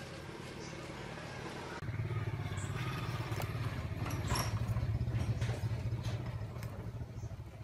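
Wood fire crackling in a clay charcoal stove, with scattered sharp clicks and knocks as sticks are handled. From about two seconds in, a steady low engine-like hum starts and stays the loudest sound.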